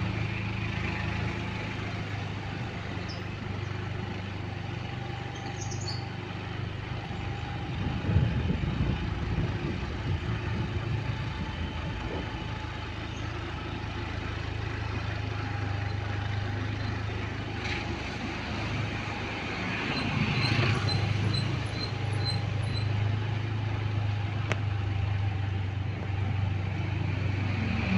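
Motorcycle engine running steadily while riding along a lane, with road and wind noise. It grows louder twice, about eight and twenty seconds in, and a short run of faint high beeps comes around twenty seconds in.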